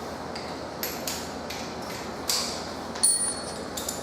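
A few light knocks and handling noises, then a sharp metallic clink that rings briefly, about three seconds in.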